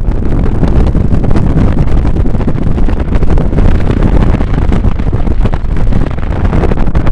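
Strong gusty wind of over 20 mph buffeting the microphone: a loud, continuous low rumble that rises and falls with the gusts.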